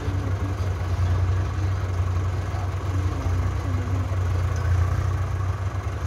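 JCB backhoe loader's diesel engine idling steadily with a low hum.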